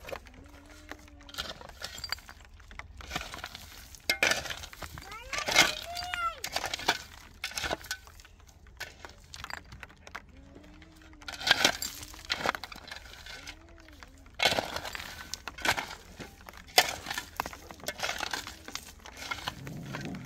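Irregular sharp knocks, cracks and clinks of hard objects being handled or broken, loudest near the middle and about three-quarters through, with a few short wavering voice-like calls in between.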